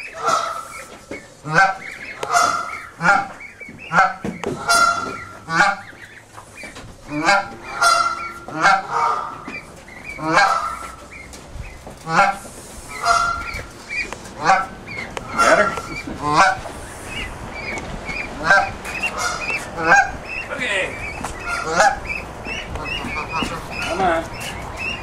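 Adult Canada goose honking over and over, short calls about once a second.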